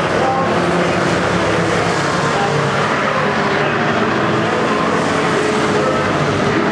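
Engines of a pack of oval-track race trucks running at racing speed as they pass close by, several engines sounding at once, steady and loud.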